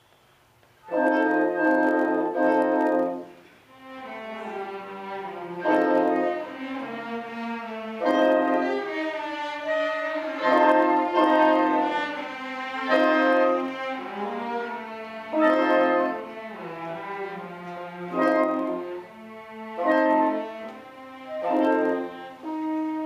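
Orchestra playing classical music, bowed strings to the fore. It comes in with a loud chord about a second in, and loud accented chords come back every two to three seconds between quieter passages.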